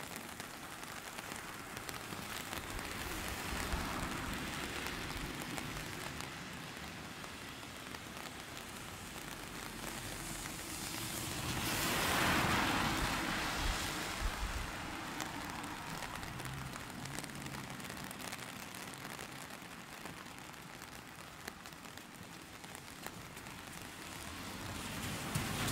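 Steady rain falling, an even hiss that swells louder for a few seconds about halfway through, with a low vehicle engine hum starting to come in near the end.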